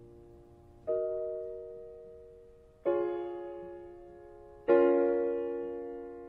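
Piano playing slow, sustained chords: three chords struck about two seconds apart, each left to ring and fade, the third the loudest.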